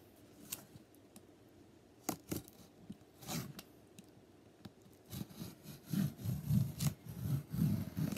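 A cardboard parcel being opened by hand: a few sharp clicks and scrapes, then from about five seconds in a dense run of rubbing, scraping and tearing as the packing is pulled open.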